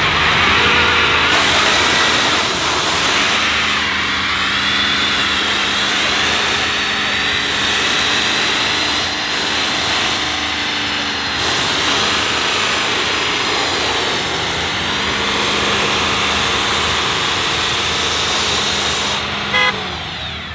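2022 Ford Super Duty dually truck's engine held at high revs in a burnout, wheels spinning, while nitrous hisses from a bottle into its open intake. The revs sag and recover twice, and the sound drops off right at the end.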